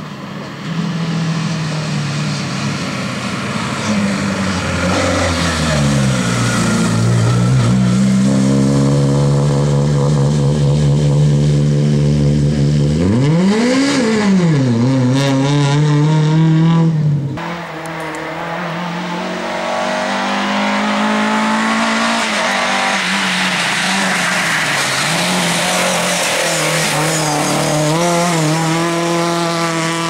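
Lada 2107 rally car's four-cylinder engine at racing pace: its pitch falls as it slows, holds, then revs sharply up and back down. The sound changes abruptly a little over halfway through, after which the engine note wavers up and down on and off the throttle.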